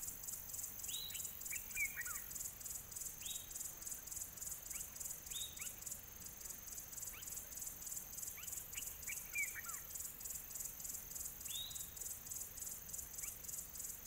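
Faint outdoor ambience: insects trilling steadily in a fast, high-pitched pulse, with scattered short bird chirps and brief down-sliding calls, a few in quick clusters.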